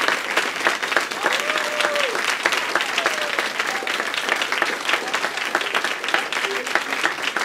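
Audience and performers applauding: dense, steady clapping, with voices calling out over it.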